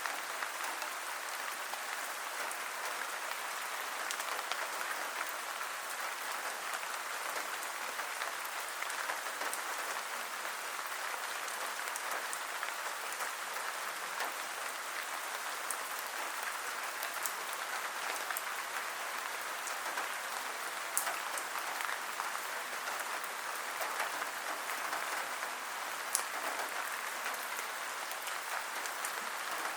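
Rain falling steadily as a dense, even patter, with a sharper single drop tick now and then.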